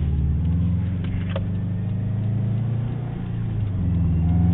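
2009 Subaru Impreza WRX's turbocharged engine through its SPT dual-muffler, 3-inch exhaust, heard from inside the cabin: a steady, throaty drone that dips briefly about three seconds in, then rises in pitch and grows louder as the car accelerates.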